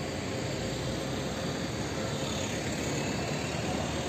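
Steady city-centre hum of distant road traffic, even throughout with no single event standing out.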